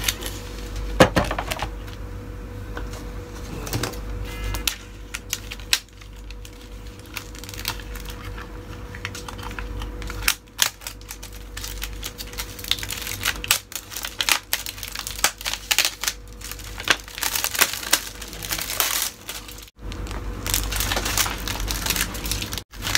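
Plastic wrapping crinkling and rustling as it is cut and peeled off a knife set on a wooden board, with scattered sharp clicks and taps of the knives and board. A faint steady hum runs underneath.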